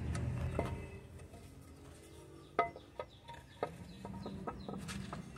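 Three sharp clicks and light knocks, about half a second apart, a little past halfway, then a few fainter ticks: the aluminium clutch cover being seated against the engine case of a Bajaj three-wheeler.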